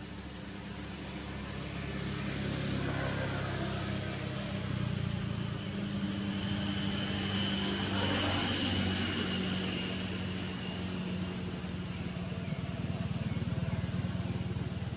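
A motor engine running steadily, growing louder over the first few seconds and then holding.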